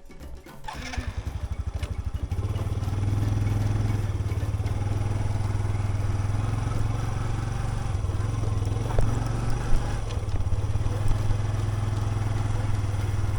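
Motorcycle engine that comes in about a second in as separate, evenly spaced pulses, then settles into a steady, even run. A couple of brief knocks are heard around nine to ten seconds in.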